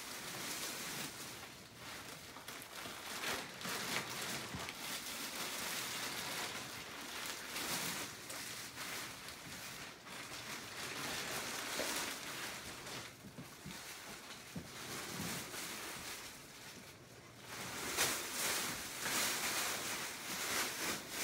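Plastic wrapping crinkling and rustling in irregular stretches as it is pulled and gathered off a vacuum-packed mattress, louder near the end.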